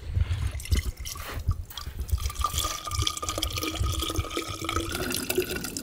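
Coconut water pouring from a hacked-open coconut into a plastic water bottle. The tone rises slowly as the bottle fills.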